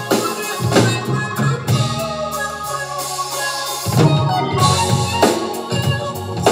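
Funk band playing live: electric guitar, bass guitar, drum kit and keyboard, with a bass note held briefly before a strong drum hit about four seconds in.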